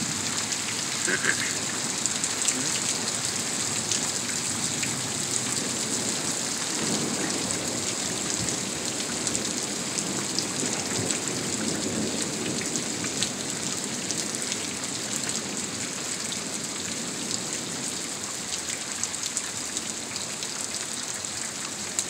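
Steady rain falling, a dense patter of drops, during a thunderstorm, with a low rumble of distant thunder swelling in the middle.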